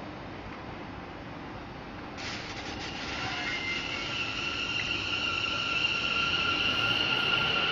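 Train moving through the station, its running noise growing louder from about two seconds in, with a steady high-pitched whine.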